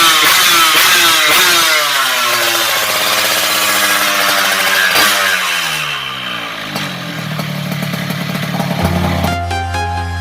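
Yamaha two-stroke single-cylinder motorcycle engine being revved, the pitch falling away twice as the revs drop back. Electronic music comes in near the end.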